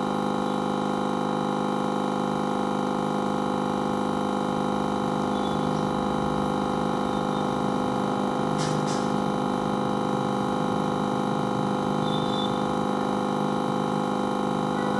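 SMD hot-air rework station running steadily, blowing hot air onto a memory card, a steady hum made of many tones over a rush of air. One brief click about nine seconds in.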